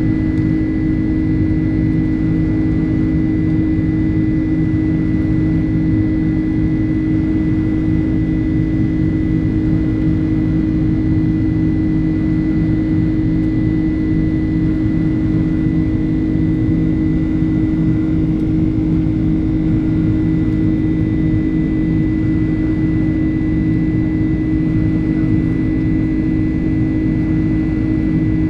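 Boeing 767-300's GE CF6 turbofan engines heard from inside the cabin: a steady, even drone with a strong low hum and a thin high whine over it.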